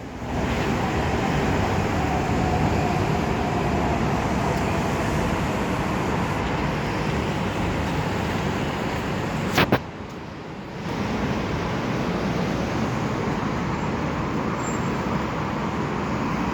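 Steady road-traffic noise. A sharp click comes near the middle, then about a second of lower level before the traffic noise returns.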